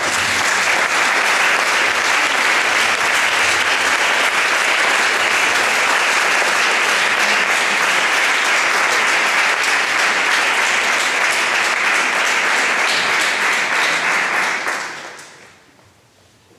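An audience applauding: a long, steady round of clapping that fades away about fifteen seconds in.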